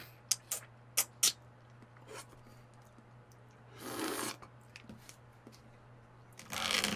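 Small wet mouth clicks and smacks in the first second or so as the lid of a small plastic dessert cup is licked, then a short slurp from the cup about four seconds in. Near the end, a brief crinkly rustle as the foil lid is peeled off another cup.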